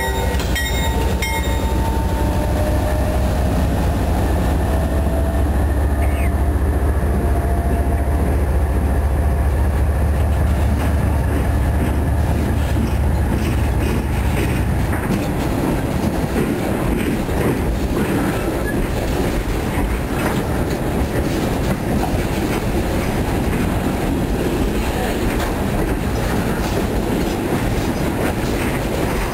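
A freight train passing close by: the deep engine rumble of its CSX diesel locomotive fades out about halfway through, leaving the steady clickety-clack of the refrigerated boxcars' wheels over the rail joints.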